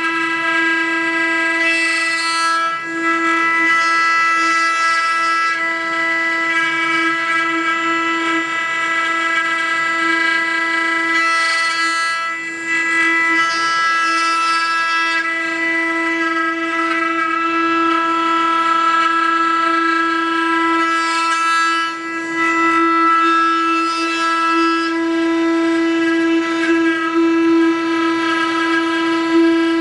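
Multi-head CNC wood router's spindles running with a steady, unchanging whine, with a hiss of cutting rising and falling every few seconds as the bits work the wood.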